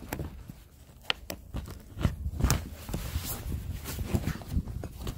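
Bungee cord hooks being unhooked from the tabs of a canvas tilt: scattered sharp clicks and rustling of the canvas, over a low rumble.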